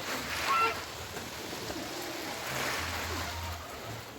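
Water splashing and running, with one short waterfowl call about half a second in.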